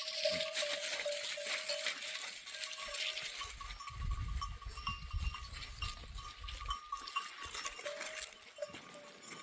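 A flock of sheep and goats with bells ringing, amid a steady patter of small clicks. A low rumble comes in for a few seconds in the middle.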